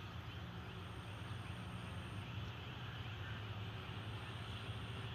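Faint outdoor background with a steady low hum from a distant motor.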